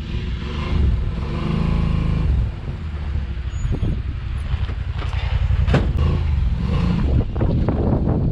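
Side-by-side UTV engine running at low revs as the machine crawls slowly over steep rock, with a sharp knock a little past halfway.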